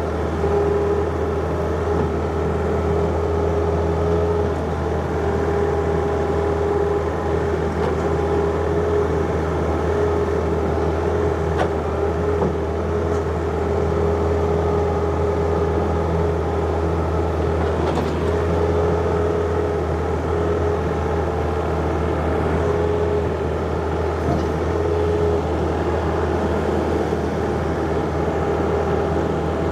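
John Deere 50ZTS mini excavator's diesel engine running steadily, with a steady whine above the engine hum.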